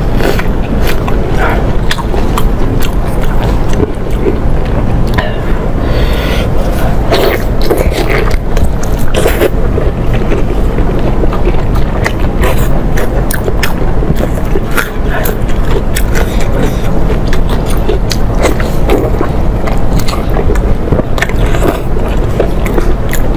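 Close-miked eating: chewing and biting braised pork, with frequent short wet mouth clicks over a steady low rumble.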